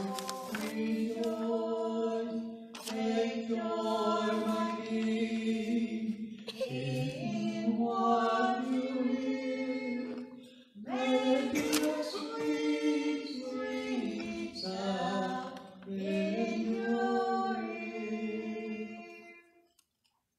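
Several voices singing a song together, apparently unaccompanied, in held sung phrases; the singing ends with a final phrase near the end.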